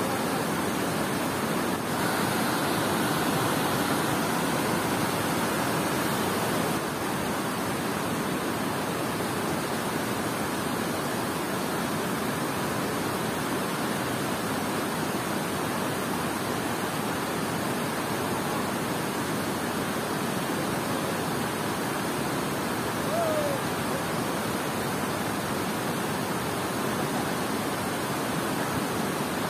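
Water pouring over a concrete dam spillway into a fast, churning river below: a steady, even rush of falling water with no let-up.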